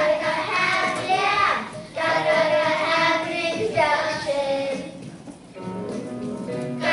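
Children singing a song with instrumental backing, in phrases with long held notes; it goes softer about five seconds in before the singing picks up again near the end.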